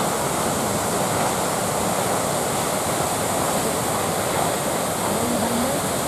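Düden Waterfall, about 40 m high, pouring off the cliff into the sea: a steady, unbroken rush of falling water.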